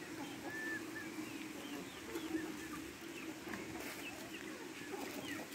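Birds chirping: many short, scattered calls over a low steady hum.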